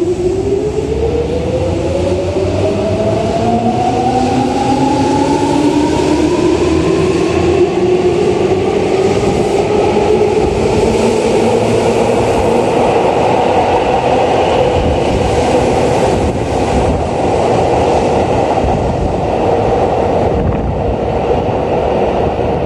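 Tobu 9000 series electric train accelerating out of an underground station. Its traction motor whine rises steadily in pitch over about ten seconds, over the rumble and rush of the cars passing. The rush eases slightly near the end as the last car clears the platform.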